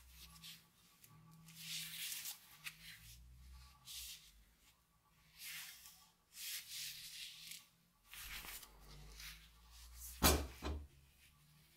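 Gloved hands handling a metal axe head: several soft rubbing and rustling sounds, then one sharp knock about ten seconds in.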